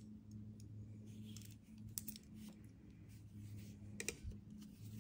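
Knitting needles clicking and tapping against each other a few times while stitches are cast on, the clearest clicks about two and four seconds in, over a steady low hum.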